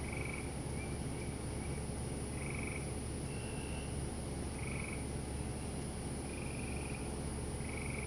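Frogs calling at night: short trilled calls, each under half a second, at two slightly different pitches, coming about once a second. Behind them runs a steady, thin, high insect drone.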